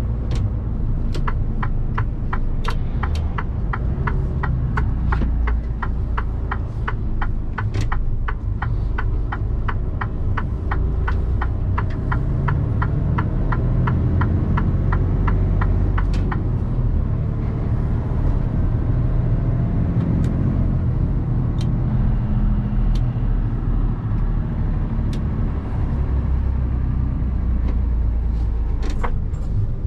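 Mercedes-Benz Actros truck driving, with a steady engine and road rumble heard from the cab. Over it runs an even ticking of the turn indicator, about two to three ticks a second, which stops about halfway through.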